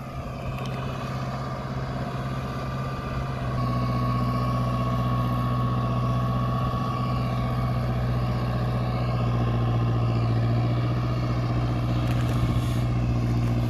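Mahindra Arjun Novo 605 tractor's four-cylinder diesel engine running steadily while it pulls an 8-foot rotavator through a flooded paddy field for puddling. The hum gets louder about three and a half seconds in.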